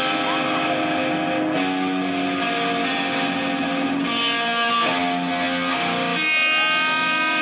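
Electric guitar playing the intro of a rock song live through the PA, sustained chords that change about every second, with no drums yet.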